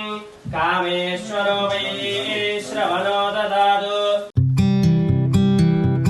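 Background music: a sung vocal line over a steady drone, then an abrupt cut about four seconds in to a strummed acoustic guitar.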